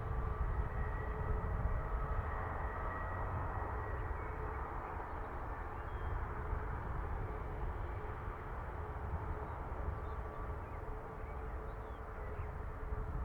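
Steady aircraft engine noise: a low rumble with a faint whine running through it, easing a little in the second half.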